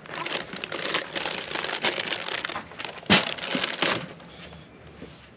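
Plastic liner bag of a Bisquick box crinkling and rustling as the dry baking mix is poured from it into a measuring cup. There is a sharp knock about three seconds in, and the rustling stops about a second later.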